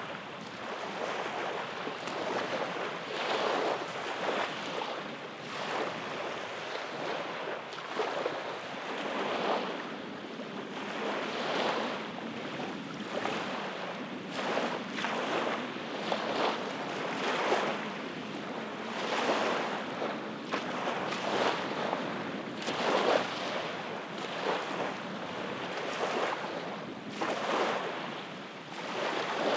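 Small waves lapping and washing onto a sandy beach, a hiss that swells and falls back every second or two.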